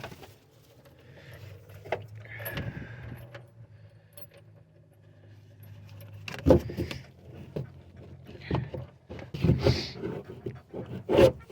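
Rummaging and clattering as loose pieces are handled and wedged into place, with several sharp knocks in the second half, over a low steady hum.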